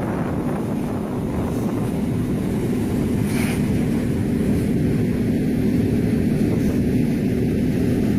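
Steady low engine rumble with a faint constant hum, with wind buffeting the microphone.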